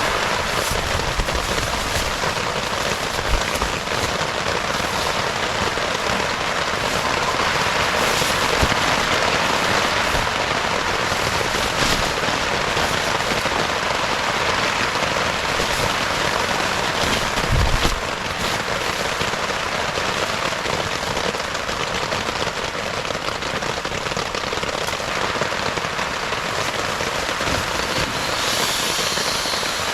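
Steady heavy rain falling, a dense even hiss with small scattered pops of drops, and one brief low thump a little past the middle.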